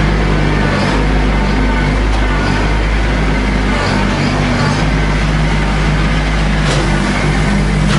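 Compact tractor's engine running at a steady speed as it drives over gravel inside a metal barn.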